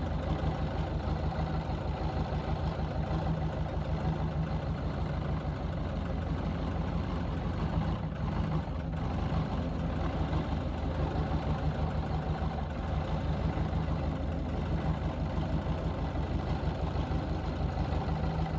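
Bobcat 863 skid steer's diesel engine running steadily at a constant speed, with an even low pulsing.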